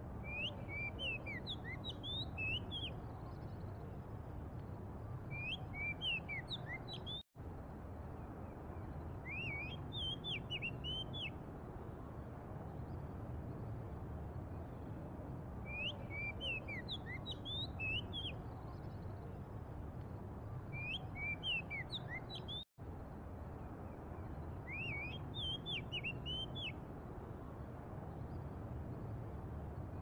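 Oriental magpie-robin singing: short phrases of clear, sharply gliding whistles, repeated every four to six seconds, over a steady low rumble of city traffic.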